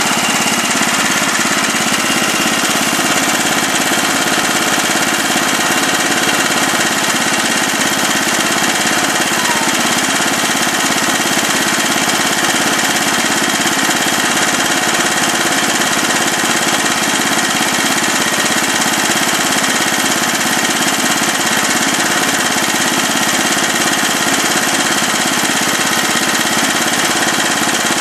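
Briggs & Stratton four-stroke engine of a restored 1979 Landmaster Saturn rotary mower running steadily at an even speed.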